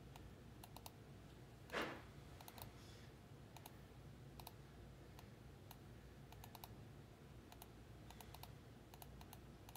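Faint, scattered clicks of a computer mouse and keyboard as a list of names is copied and pasted, with one brief soft rush of noise about two seconds in.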